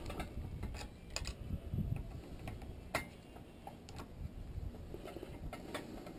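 Irregular light clicks and taps of small metal parts and hand tools being handled while a water heater control box is taken apart, with the sharpest click about three seconds in.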